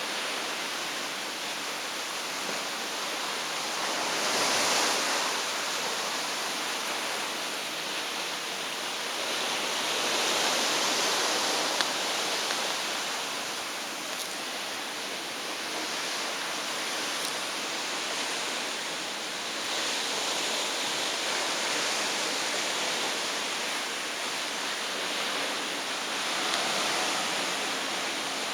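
Sea water churning and rushing in the wake of the cruise ship Royal Princess, a steady hiss that swells and eases every few seconds.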